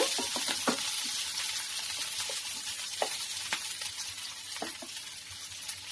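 Chopped capsicum frying in hot oil in a pan: a steady sizzle with a few sharp clicks scattered through it.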